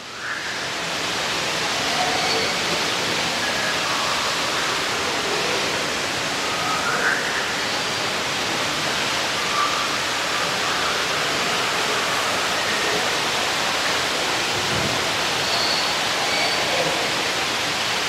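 Steady rushing of an indoor waterfall, with faint, scattered bird calls from the aviary over it.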